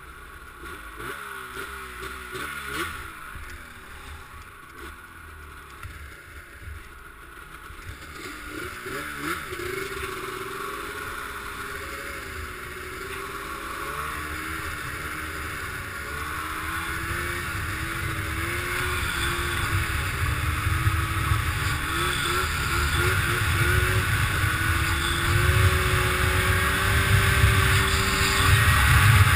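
Snowmobile engine running, its pitch wavering as the throttle changes, then growing steadily louder from about a third of the way in as the sled picks up speed, with a rush of noise building along with it.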